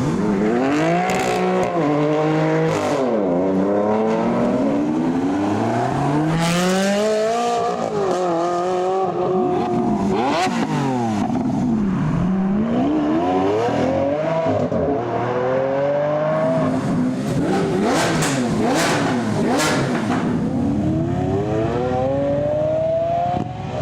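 Supercar engine revving, its pitch climbing and dropping again and again, with a few sharp cracks at several points.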